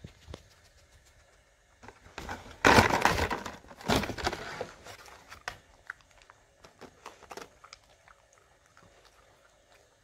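A Jack Russell terrier rummaging in a cardboard pizza box with its muzzle, making the cardboard crackle and crumple. The crackling is loudest and densest for a couple of seconds from about two seconds in. After that come scattered small clicks and rustles as the dog noses at the pizza.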